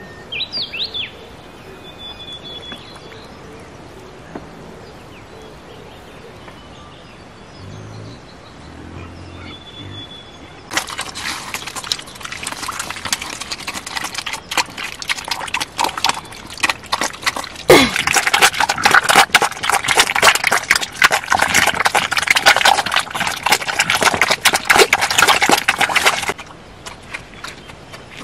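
Black piglets eating chopped greens from a bowl: a dense, loud run of rapid wet chomping and smacking lasting about fifteen seconds, starting and stopping abruptly. Before it, a few bird chirps sound over a quiet background.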